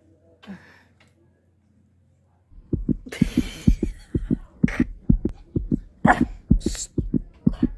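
A woman laughing, much of it held in: a quick run of pulsed chuckles, about five a second, with a few breathy outbursts, starting a couple of seconds in.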